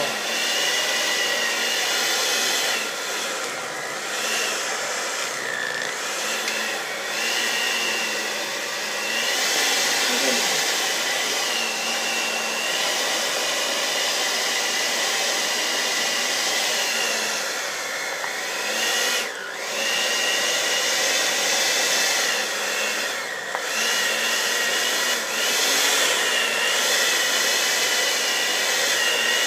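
Electric mixer running continuously while beating a thick cream cheese and whipped cream pie filling. The motor whine wavers as the load on the beaters changes, with a couple of brief dips past the middle.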